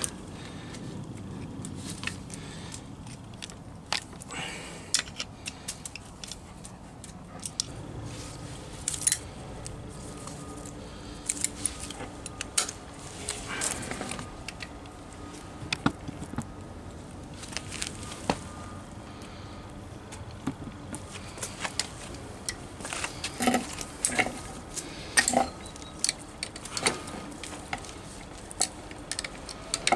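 Irregular metallic clicks and clinks of hand tools: a combination spanner turning the top nut of a car's rear shock absorber while locking pliers grip the shock's rod. The clinks come in clusters, busiest about halfway through and again in the last third.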